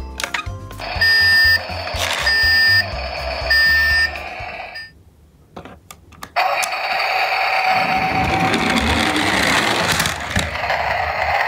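Three short, loud electronic beeps from a toy pickup truck's sound unit, evenly spaced, over background music. After a brief pause, a steady whirring rush as the toy is pushed along and runs down a wooden slope on its wheels.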